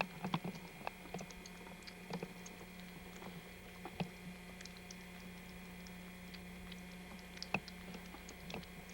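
Light, irregular clicks and ticks from kittens in a small cage, over a steady low hum.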